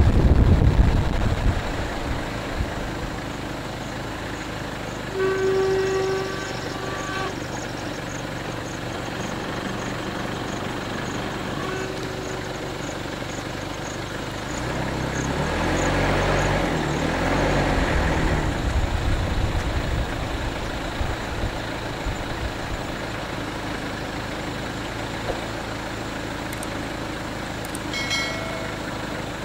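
Motor vehicle running on a road, with a low rumble at the start and a louder rumble swelling and fading in the middle. A horn sounds steadily for about two seconds around five seconds in, and a shorter tone comes near the end.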